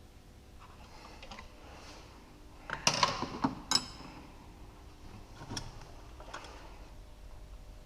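Metal hand tools clicking and clanking on the engine while the timing-belt tensioner roller's nut is tightened, with a quick cluster of sharper knocks about three seconds in and a few lighter clicks afterwards.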